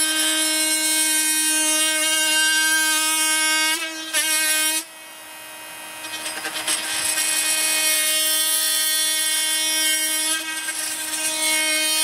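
Makita DTM52 brushless oscillating multi-tool running at full speed, giving a steady high buzzing whine as its blade plunge-cuts into a softwood board. The sound drops off about five seconds in, then comes back with more scratchy cutting noise over the whine.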